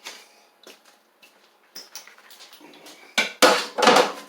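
Kitchen handling sounds: a few light clicks and knocks, then a loud clatter with some ringing about three seconds in.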